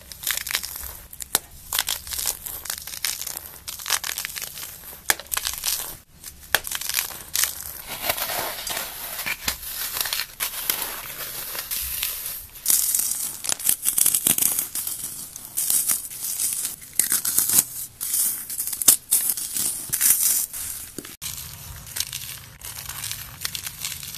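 Hands crushing and crumbling blocks of paste-coated floral foam: a dense run of crisp crunches and crackles that changes texture abruptly twice as one crush gives way to another.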